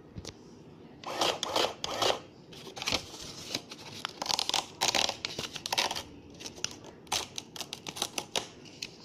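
Paper printout being torn off a printing calculator's roll against its serrated tear bar: several irregular rasping tears, then quick crinkling and ticking of the paper strip near the end.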